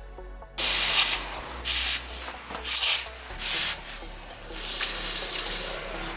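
Abrasive rubbing strokes on the steel knife blade: four loud rasping back-and-forth strokes, then a quieter, steadier rubbing in the second half.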